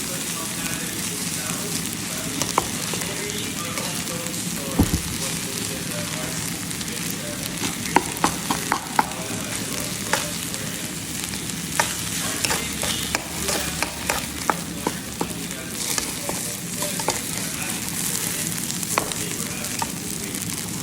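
Fried rice sizzling in a hot pan while it is stirred, with a steady frying hiss and frequent sharp clicks and scrapes of the spatula against the pan.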